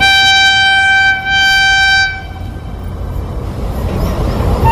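Horn of an approaching WAP-5 electric locomotive: two blasts on one steady note, a longer one and then a shorter one, together about two seconds. After the horn, the low rumble of the oncoming train grows gradually louder.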